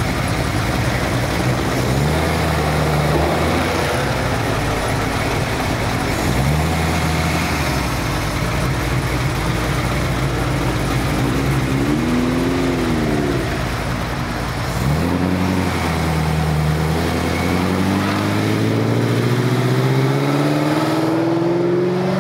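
Engine of a red Ford GT40-style replica idling, with a short rev blip about halfway through, then the engine note climbing steadily over the last few seconds as the car accelerates away.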